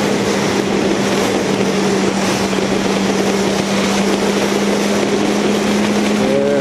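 Yamaha R1's inline-four engine running at a steady highway cruise, holding one even tone, under a heavy rush of wind noise on the bike-mounted microphone.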